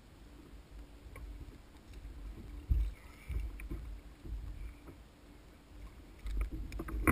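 Dull thumps and knocks against a kayak's hull as a large wahoo is handled and lifted on deck. They are loudest about three seconds in and again near the end, over a low rumble of wind and water.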